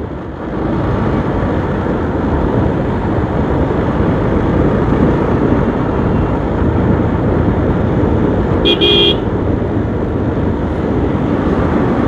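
Steady rush of road, wind and engine noise while riding a motorcycle on a highway, with one short vehicle horn honk about nine seconds in.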